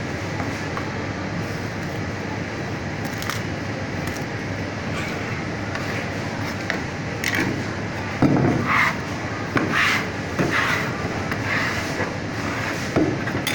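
A knife working a barracuda on a wooden chopping board: a run of short scrapes and knocks in the second half, the loudest about eight seconds in. Under it runs a steady background noise.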